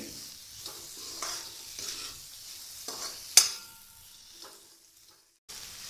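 Chopped onions and tomatoes sizzling in a metal kadai while a metal spatula stirs and scrapes through them over a medium-to-high flame. A single sharp metal clank comes about three and a half seconds in. The sound then fades to a brief silence before the sizzling resumes near the end.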